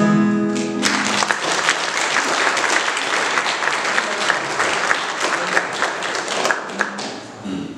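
Audience applauding just after a song ends: the last sung note and acoustic guitar chord die away within the first second, then steady clapping that fades out near the end.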